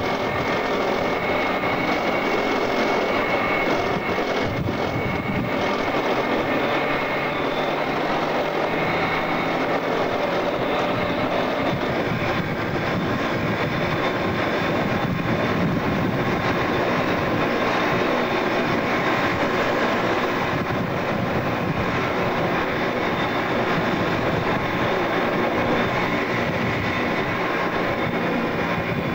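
Armoured military vehicle driving across desert, heard from its turret: a steady, loud engine and running-gear drone with a held whine above it.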